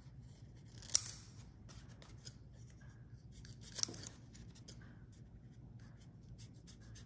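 Scissors snipping through a thin craft foam sheet, cutting out a shape: a run of faint short snips, with two sharper, louder ones about a second in and just before four seconds.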